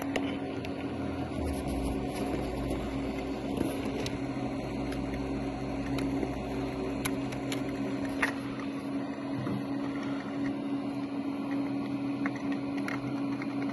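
A steady mechanical hum with a few faint clicks scattered through it.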